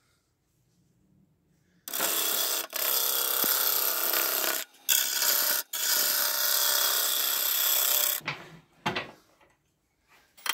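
A turning gouge cutting into a spinning alder blank on a wood lathe, a loud steady hiss of shavings coming off. It starts about two seconds in, breaks off briefly a few times, and stops about eight seconds in.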